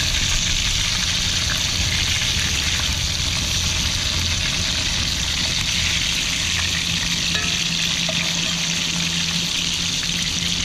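Bluefish fillets sizzling steadily in hot oil in a cast iron skillet, with a low rumble underneath.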